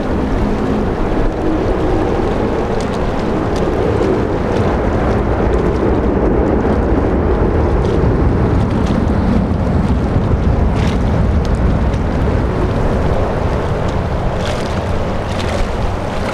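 Boeing 737-400's CFM56-3 jet engines giving a steady low roar as the airliner rolls out along the runway after landing, swelling a little midway and easing toward the end.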